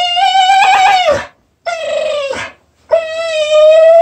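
A German Shorthaired Pointer whining in long, high, drawn-out cries, three in a row with short breaks between them: the dog is begging to be let out to go to the park.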